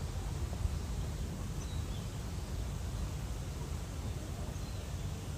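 Steady low outdoor rumble, like wind on the microphone or distant traffic, with a few faint short bird chirps.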